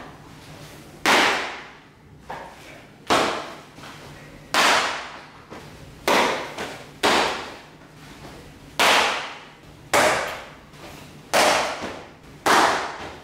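A baseball smacking into leather gloves during a game of catch, one of them a Zett Genda Sosuke-model glove: sharp pops about every second or so, each ringing on in the bare room.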